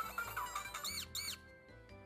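Electronic sound chip of a Sutakora BANK toy coin bank playing a jingle with two quick squeaky mouse chirps about a second in, over the low whir of its motor as the mouse's coin cart comes out of the house.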